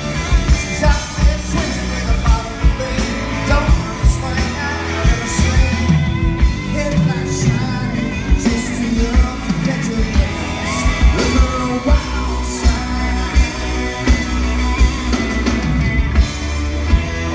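A live country-rock band playing: electric guitars, bass and drums keep a steady beat under a male lead vocal.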